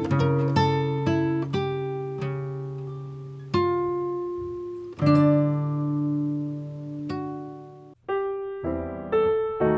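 Background music: a plucked guitar playing slow single notes that ring out and fade. About eight seconds in it breaks off briefly and a quicker run of notes begins.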